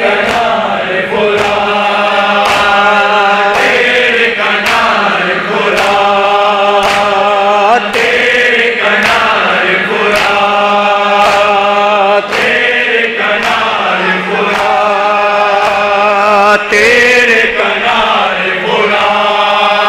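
Noha, a Shia lament, chanted by male voices in long held phrases, with the congregation's rhythmic chest-beating (matam) as a steady beat a little under a second apart.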